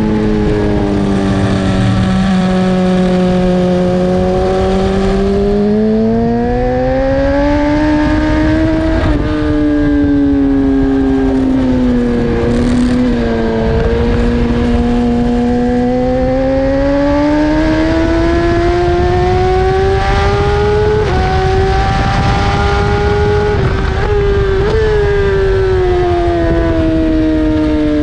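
BMW S1000RR's inline-four engine at race pace, heard on board: the revs fall to a low point, climb, dip again about twelve seconds in, then rise steadily with short breaks in the note before easing off near the end. A rush of wind noise runs under it.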